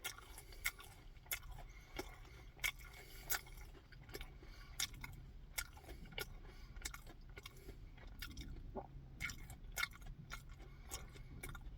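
A person chewing food close to the microphone, with irregular sharp crunching clicks about twice a second.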